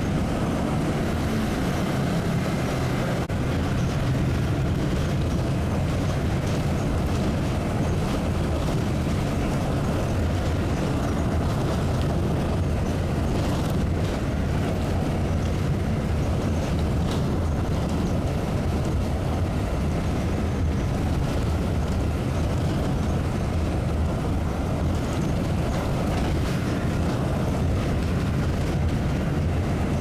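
Steady low drone of a moving road vehicle, heard from inside: engine and road noise running without change.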